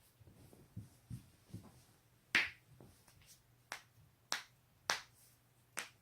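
Human joints being cracked: about five sharp pops spread over the last four seconds, the first the loudest, after a few soft low knocks.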